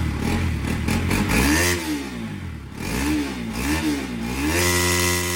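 Motorcycle engine revved up and down several times, its pitch rising and falling, then held at a steady higher speed near the end. The owner says this engine has gone after misfiring and is throwing out engine oil.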